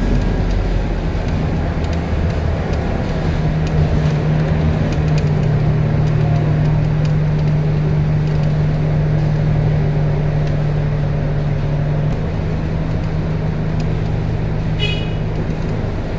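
A Scania K230UB city bus running through its ZF Ecomat 6HP 504C automatic gearbox, heard from inside the passenger cabin. A steady low drone holds one pitch for several seconds, then shifts lower. A brief high beep sounds near the end.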